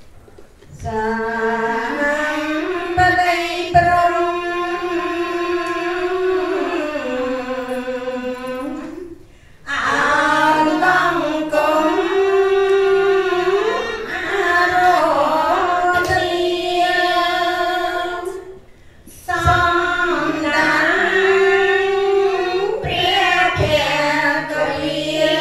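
Laywomen chanting together into a microphone: a slow, melodic Khmer Buddhist chant sung in long held phrases, with two breath pauses about nine and nineteen seconds in.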